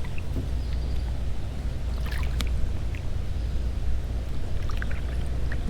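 Water splashing lightly and lapping around a kayak, with a few small knocks, over a steady low rumble.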